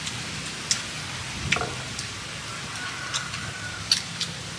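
Small scattered clicks and taps of people eating at a shared meal: utensils and hands on bowls and plates, and rice-paper rolls being handled, over a faint steady background.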